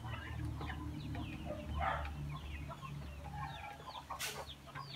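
A flock of four-week-old black Australorp and barred Plymouth Rock chicks peeping and clucking, many short high falling chirps overlapping, over a low steady hum. A sharp click cuts in about four seconds in.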